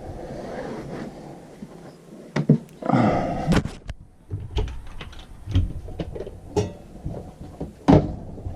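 Handling noises: a string of light clicks and knocks, with a louder rustling burst about three seconds in.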